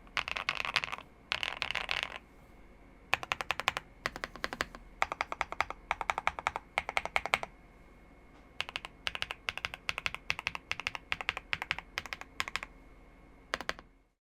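Zuoya GMK87 mechanical keyboard with lubed G-Squared White Warrior switches, a PP plate and full foams being typed on. It starts with about two seconds of fast continuous typing, then comes in short rapid runs of keystrokes with brief pauses between them.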